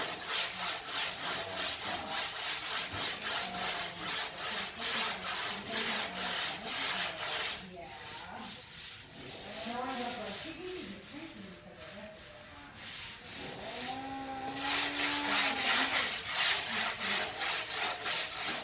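Hand sanding: rapid back-and-forth strokes of abrasive on a surface, about four a second. The strokes pause briefly, ease off for a few seconds midway, then pick up again harder, with occasional short squeaks.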